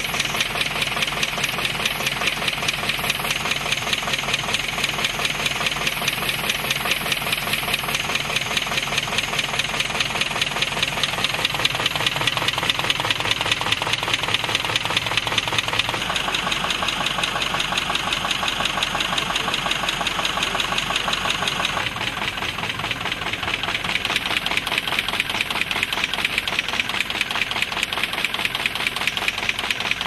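MBO T535 Efficiency Automatic buckle folding machine running, a fast, even mechanical clatter many times a second as it feeds and folds sheets. The clatter shifts in tone about halfway through and again later on.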